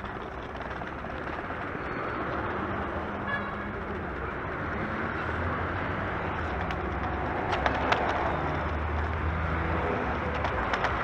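Oxelo Town 9 EF V2 kick scooter rolling over paving, a steady rumbling road noise mixed with street traffic that grows louder. A few sharp rattling knocks come about three-quarters of the way through.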